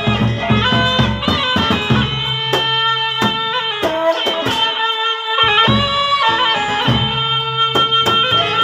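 Lombok gendang beleq ensemble playing: large barrel drums and clashing cymbals under a shrill, sustained reed melody. The low drum strokes drop away briefly around the middle, then return.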